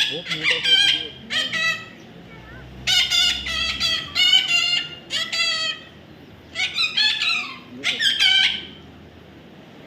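A parrot calling in quick runs of short, harsh, wavering squawks, in three bouts with brief pauses between.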